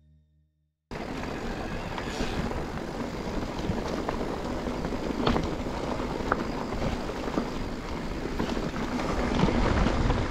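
Mountain bike riding over a rough trail: steady tyre-on-ground noise and the bike rattling, with many scattered clicks and knocks. It starts suddenly about a second in.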